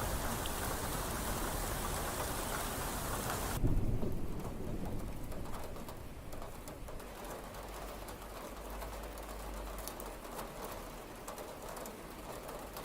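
Heavy rain falling in a dense hiss. About three and a half seconds in it turns suddenly quieter and duller, with a low rumble of thunder and scattered individual raindrop ticks.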